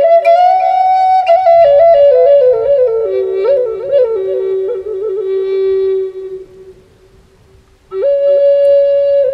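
Pimak, a Native American-style flute in G, playing a slow improvised phrase. The melody steps downward over a steady lower note and fades out about six seconds in. After a short pause a new long note begins about eight seconds in.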